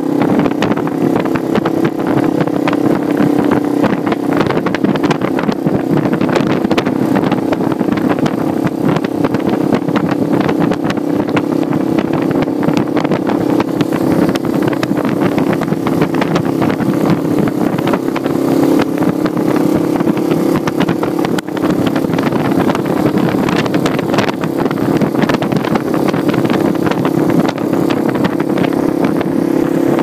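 Yamaha Serow 225's air-cooled single-cylinder four-stroke engine running at a steady cruising speed, heard from the saddle, with wind rushing over the microphone.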